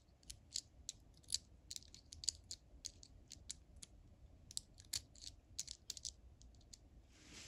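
Metal tweezers tapping and clicking against a small flashlight's LED board and plastic head as the board is nudged into centre: a quiet run of small, sharp, irregular ticks, about three or four a second.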